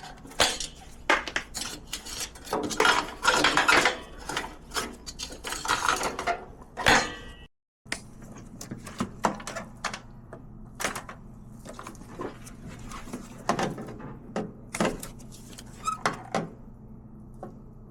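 Hand tools and wiring connectors clinking and clicking against metal in an irregular series of sharp knocks as the headlight wiring connectors are cut off and pulled out of a car's front end.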